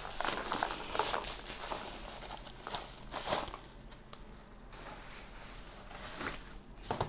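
Packaging being handled during an unboxing: irregular crinkling and rustling of wrapping, busiest in the first few seconds and then quieter and sparser.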